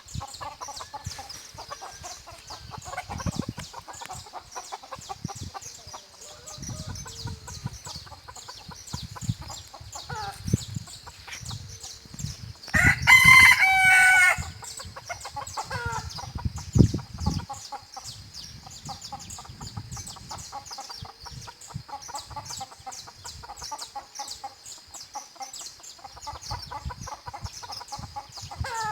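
A rooster crows once, about halfway through, in a loud call of about a second and a half. Hens cluck quietly around it, and small birds chirp throughout.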